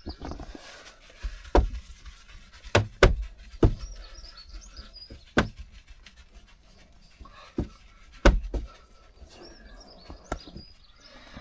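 Cleaning the inside of a windscreen by hand: faint high squeaks between about eight sharp knocks and clicks of handling.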